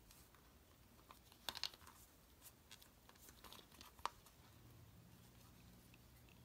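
Faint handling noises: a few light clicks and rustles as a plastic slider and its faux fur strap lining are turned over in the hands, with one sharper tick a little past the middle. A faint low hum comes in near the end.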